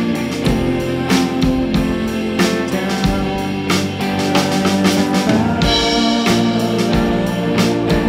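Instrumental band music: a drum kit keeps a steady beat under held guitar chords.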